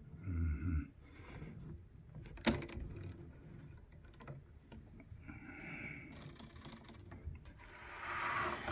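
Clicks and mechanical noises from a 1929 Continental portable typewriter's mechanism being worked by hand, with one sharp click about two and a half seconds in.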